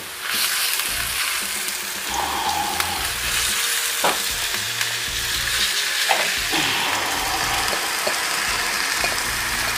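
Pieces of marinated pork sizzling in hot oil as they are tipped into a pan of fried onions, the sizzle starting suddenly just after the start and then holding steady. A few light knocks of utensils on the pan sound in the middle.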